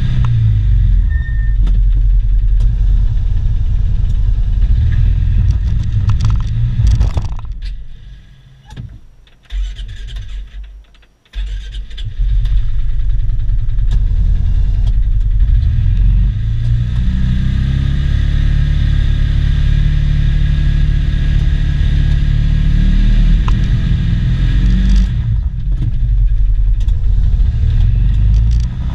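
Polaris Ranger 570 UTV's single-cylinder engine running under load while plowing deep snow, heard from inside the cab. About a third of the way through the sound fades away for a few seconds, then comes back abruptly.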